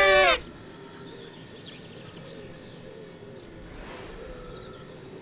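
A fanfare trumpet holds one note that cuts off about half a second in. Only faint background sound follows.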